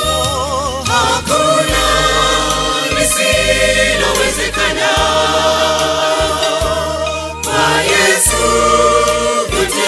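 Mixed church choir singing a Swahili gospel song in harmony over a low bass line, one voice holding a note with wide vibrato near the start.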